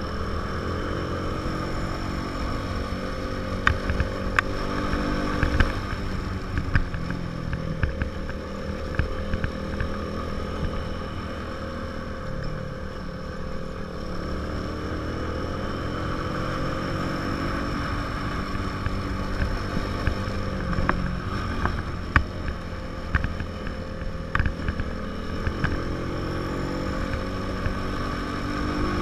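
150 cc single-cylinder motorcycle engine running under way, heard from the rider's seat, its pitch rising and falling with the throttle, with wind on the microphone. Scattered sharp clicks and knocks come twice, a few seconds in and again in the second half.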